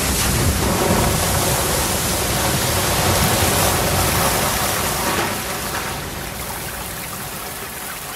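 A huge torrent of water from a burst water tower crashing down onto an open convertible car, a loud steady rush and splash that fades away over the last few seconds.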